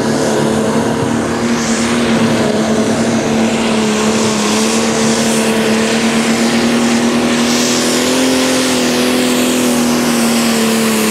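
Turbocharged diesel engine of a Pro Stock pulling tractor running at full power under load as it drags the weight sled. It gives a loud, steady engine note that wavers only slightly.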